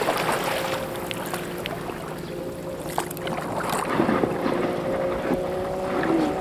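Paddle strokes and water splashing and dripping around an inflatable PVC kayak as it glides in toward the bank, with wind on the microphone. A faint steady hum lies underneath, and there are a couple of small knocks about three and four seconds in.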